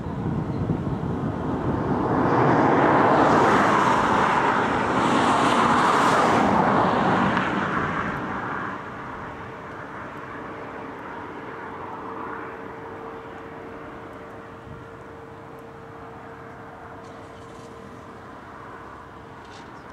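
A vehicle passing by: a broad rushing noise that swells for a few seconds and then fades away about nine seconds in. After it, a faint steady hum with a held tone remains.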